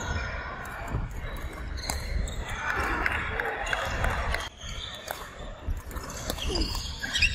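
Badminton rally on a wooden court: sharp racket hits on the shuttlecock and players' footfalls, with scattered voices in the background.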